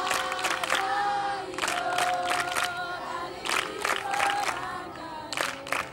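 A group of girls singing a chant together, with short groups of hand claps in time every second or so.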